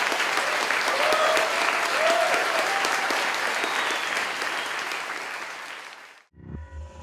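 Audience applauding, with a couple of short whoops about one and two seconds in. The applause fades out about six seconds in.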